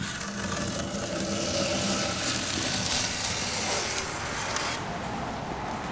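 Masking tape being peeled off chrome body trim in one long steady pull: a continuous ripping noise that lasts about four and a half seconds, then eases near the end.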